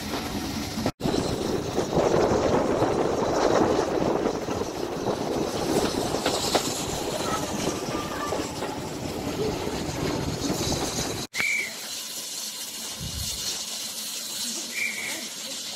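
A heritage railway train running, heard from on board as a dense rumbling rattle. After a cut near the end it gives way to quieter open-air sound with two short high chirps.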